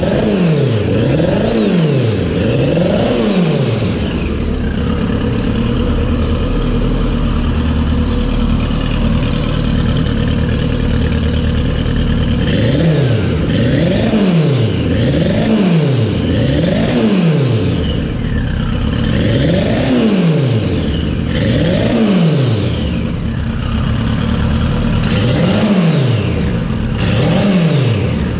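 Turbocharged Kawasaki ZX14 inline-four engine revved in quick throttle blips, each rising and dropping back within about a second, with a stretch of steady idle between the early and later blips. A high turbo whine falls away after several of the blips.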